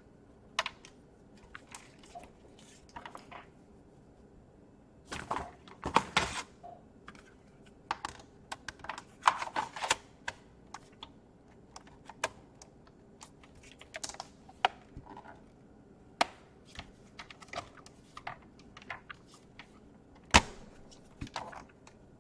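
Irregular clicks, taps and knocks of a laptop's plastic casing and parts being handled and worked on, with clusters of rattling and one sharp knock near the end.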